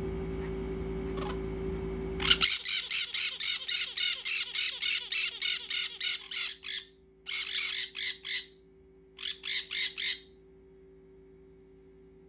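A bird giving a fast run of harsh squawking calls, about four a second, then two short bursts of about four calls each. Before the calls start, a steady low hum cuts off about two and a half seconds in.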